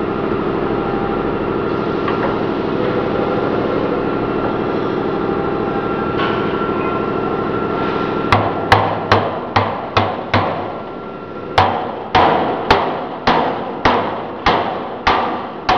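A steady hum, then from about eight seconds in a hammer strikes the steel roller shaft and sprocket fittings of a potato washing and peeling machine, about fourteen blows in two quick runs with a short pause between, each ringing briefly.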